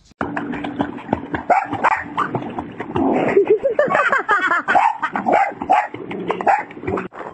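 Dog barking and yipping in a run of short, sharp calls, with a few longer calls that bend up and down in pitch near the middle.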